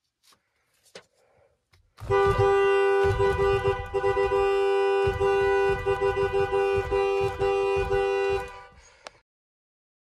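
Chevrolet Impala's car horn sounding loudly for about six and a half seconds, starting about two seconds in, hammered on in an aggressive honk: the tone stutters with many quick breaks, and dull thumps come from the hand striking the horn pad. It fades out about a second before the end.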